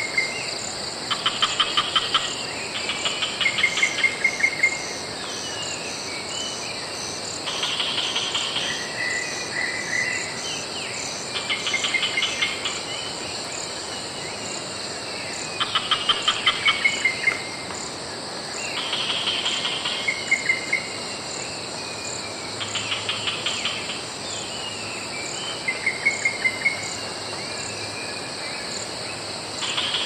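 Rainforest ambience: a dense, steady, high drone of cicadas with birds calling over it. One bird repeats a rapid series of notes every few seconds, and others whistle short falling phrases.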